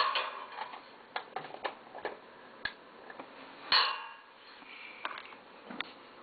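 Handling noise: a scatter of light clicks and knocks, the loudest right at the start and another about four seconds in.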